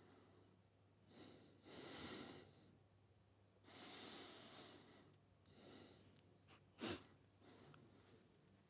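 A person breathing quietly: four soft breaths in and out, the second the strongest, and a short sharp click a little before the end.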